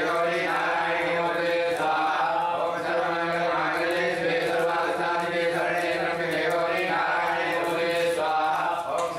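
Several men chanting Vedic mantras together in a steady, near-monotone recitation that runs on without pause, with only brief breaths.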